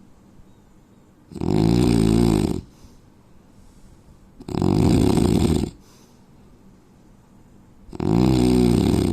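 A man snoring: three loud snores about three seconds apart, each lasting about a second, with quiet between them.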